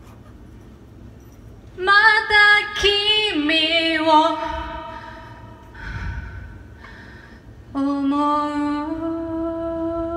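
A singer's voice singing two phrases: the first moves through several notes, and the second, starting near the end, is held on long steady notes.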